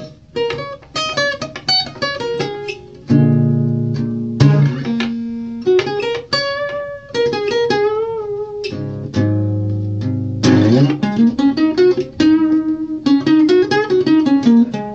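Solo acoustic guitar playing a tune of picked single notes and chords, with a few held notes shaken with vibrato about halfway through.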